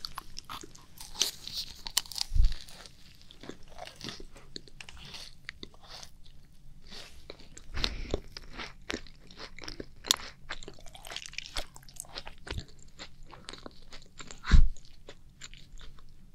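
Macarons being bitten and chewed close to a binaural microphone: many small crisp crunches of the meringue shells mixed with soft chewing, with three louder low thumps spread through.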